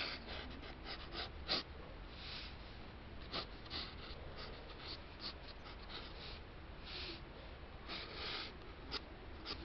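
Pencil lead scratching across sketchbook paper in quick, irregular strokes, a few of them longer sweeps, over a steady low hum.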